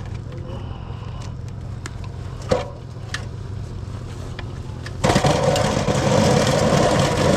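Vehicle engine idling with a steady low hum, a sharp knock about two and a half seconds in, then a loud rushing noise from about five seconds on.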